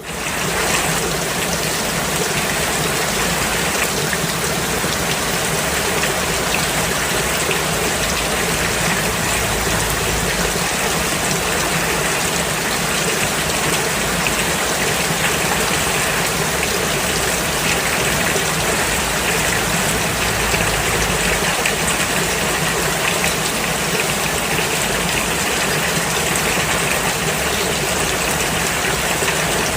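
Steady, dense rain, starting abruptly at the beginning and holding at an even level.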